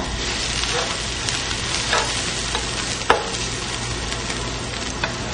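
Metal spatula stirring and knocking against a steel wok of simmering pickled-mustard-green broth, over a steady sizzling hiss. A few sharp clinks, the loudest about three seconds in.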